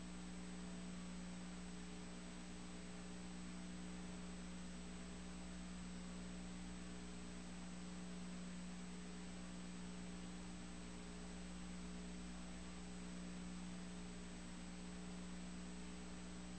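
Faint, steady electrical hum with an even hiss and a thin high whine. There is no sound from the race itself.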